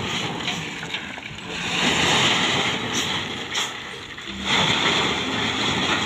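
Mitsubishi Fuso dump truck running with its bed tipped up, unloading a load of rubble, under a loud rushing noise that swells and eases.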